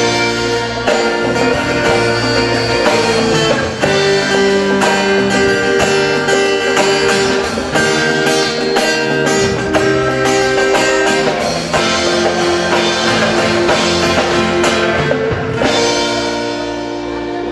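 A live band playing an instrumental passage, led by guitar with held notes over a steady beat.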